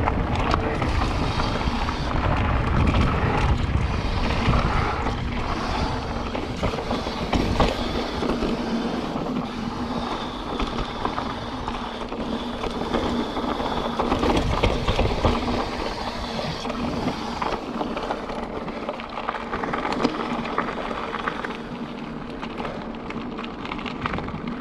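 Mountain bike riding fast down a rough dirt trail: a steady rumble of tyres on dirt, with the bike's frame and chain rattling over the bumps.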